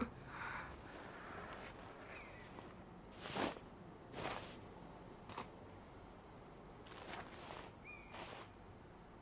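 Soft footsteps on wooden boards, a handful of scattered steps with the loudest about three and four seconds in. Under them runs a steady, high chirring of crickets.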